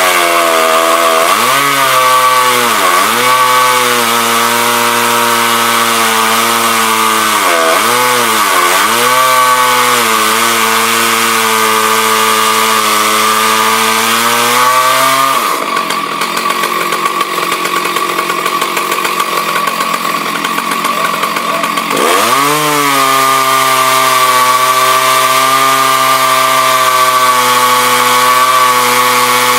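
Husqvarna 298 two-stroke chainsaw running hard under load while milling timber. Its engine note dips sharply twice and recovers. For several seconds past the middle the steady note gives way to a rougher, noisier sound, then the pitch sweeps back up and holds.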